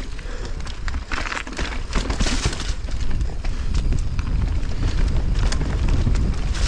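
Mountain bike descending a rough, rocky downhill trail: a dense clatter of knocks and rattles as the tyres and frame hit rocks and roots, with a hissing stretch about a second in, over a steady low rumble.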